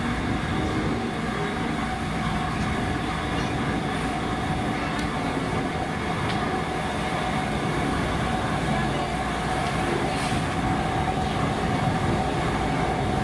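Train running with a steady mechanical hum that holds one constant note, with a few light clicks.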